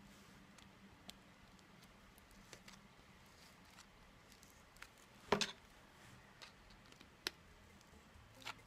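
Faint handling sounds of a foil-wrapped ball and thin wire: scattered small clicks and crinkles, with a sharper click about five seconds in and a smaller one about two seconds later.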